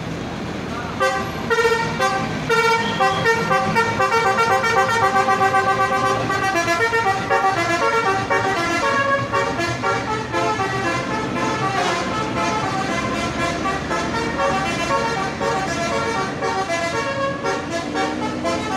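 Bus's basuri telolet musical air horn playing a quick, continuous melody of short notes.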